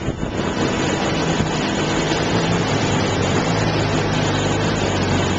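Utility bucket truck's engine running steadily, a low engine hum under general outdoor noise, growing a little stronger about a second in and again past the middle.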